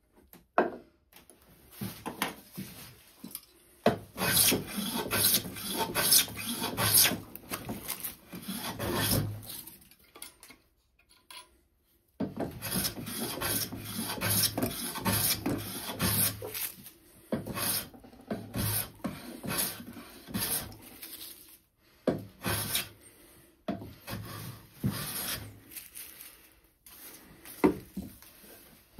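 Metal bench plane being pushed along the edge of a spruce board, shaving hiss after shaving hiss as the edge is planed square. The strokes come in two long runs, with a short pause between them and a few scattered strokes later.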